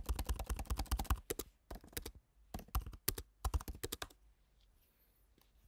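Typing on a computer keyboard: fast runs of key clicks in several bursts as a card number, name, expiry date and security code are entered, stopping about four seconds in.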